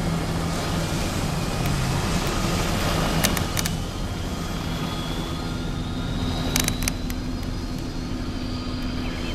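Engine of an amphibious Fiat car running as it speeds past on the water, over a steady rush of wind and water. A few brief clicks sound about three seconds in and again near seven seconds.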